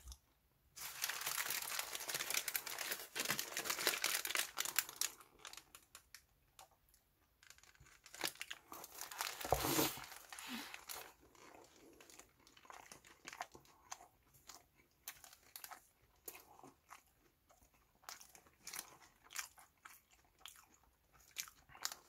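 Yellow paper burger wrapper crinkling and rustling as a half-eaten hamburger is handled, with close-miked biting and chewing of the burger. The denser crackling comes in the first few seconds, then scattered short crackles and chews.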